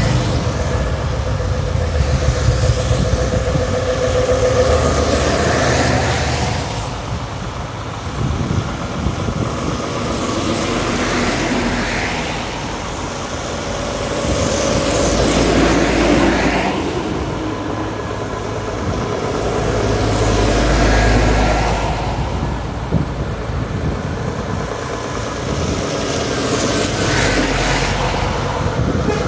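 A convoy of heavy lorries, Scania tractor units among them, driving past one after another. Their diesel engines rise and fade as each passes, about every five to six seconds.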